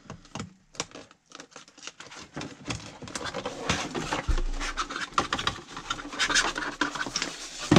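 Cardboard box and large printed paper sheets being handled: rustling, scraping and light tapping, busier and louder from about halfway through.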